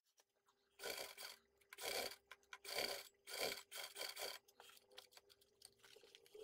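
Fabric and lining pieces rustling and scraping as they are shifted and slid across the sewing machine bed, in about six short irregular bursts over a faint steady hum.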